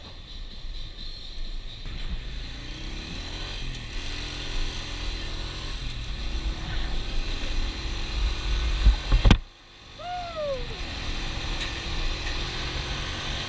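Traffic and motorbike engines at a roadside petrol stop: a steady low rumble that builds, then cuts off suddenly after a click about nine seconds in. A short falling squeal follows, and the rumble comes back.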